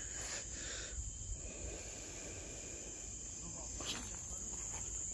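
Insects in a steady, high-pitched drone, with a faint low rumble and a couple of light clicks underneath.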